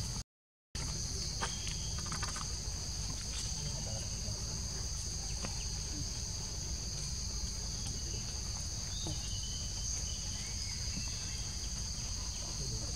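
Steady, high-pitched drone of a forest insect chorus over a low, constant rumble; the sound drops out completely for a split second just after the start.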